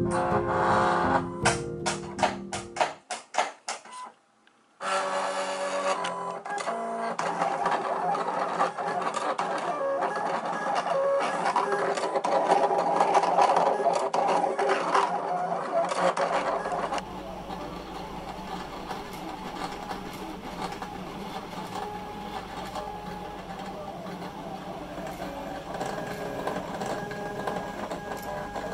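Silhouette Portrait cutting machine running, its motors driving the blade carriage and rollers through a sticker sheet in short, changing whines, with background music. It gets quieter about halfway through.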